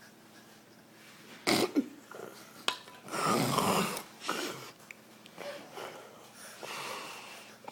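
A man snoring: a short, sharp snort about a second and a half in, then a longer, louder snore about three seconds in, followed by quieter breaths.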